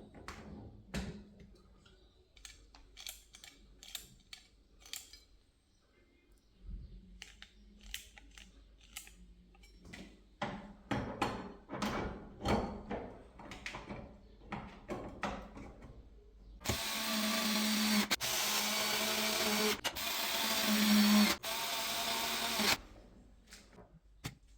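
A run of sharp clicks and knocks from door hardware being handled. Then a small power tool's motor runs for about six seconds, briefly stopping three times.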